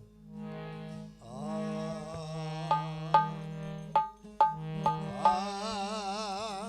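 Instrumental passage of Rajasthani devotional bhajan music: a sustained melody line over a steady low drone, punctuated by a run of sharp hand-drum strokes about half a second apart, with the melody wavering in a wide vibrato near the end.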